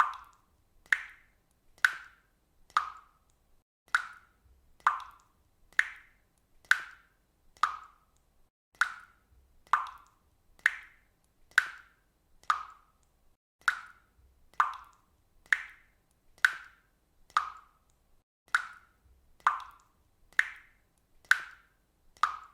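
Water dripping steadily, one drop about every second in an even rhythm. Each drop lands as a short, bright plop with a brief pitched ring.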